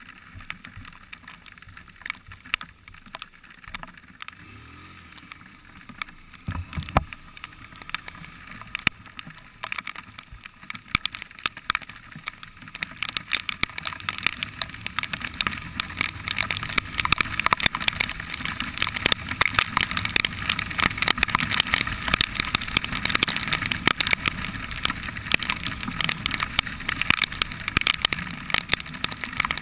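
A motorcycle riding through heavy rain, heard from a camera on the bike. Raindrops hit the camera in many small clicks over wind and wet-road hiss, which grow louder as the bike gathers speed from about twelve seconds in.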